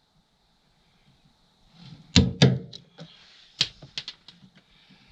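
A hammer striking a small flat screwdriver used as a chisel: a run of sharp knocks starting about two seconds in, the first two the loudest, then lighter taps.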